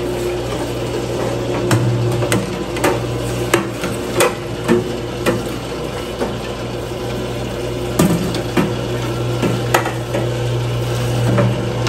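The pump motor of a Micro Filter King cooking-oil filtration machine hums steadily while hot oil pours from its steel wand into the stainless filter tank. About a dozen sharp metallic knocks, irregularly spaced, come from the wand tapping against the tank.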